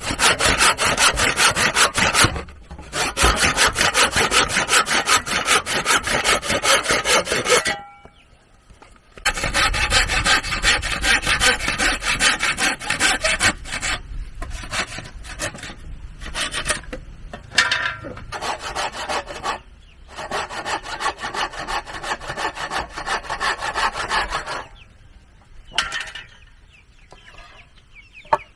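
Hand saw cutting through wood in fast, steady back-and-forth strokes, stopping briefly a few times and then giving way to a couple of sharp knocks near the end.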